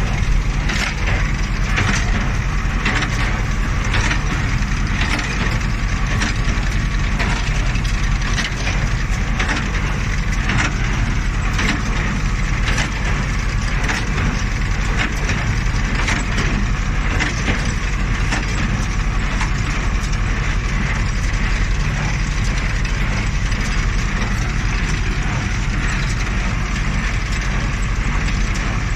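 New Holland 377 small square hay baler at work: its plunger and mechanism clatter in regular knocks over the steady drone of the tractor engine driving it.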